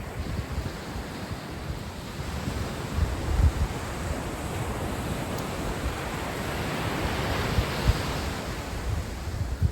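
Pacific surf washing onto a sandy beach: the rush of a breaking wave builds to a peak late on and then eases, with wind buffeting the microphone.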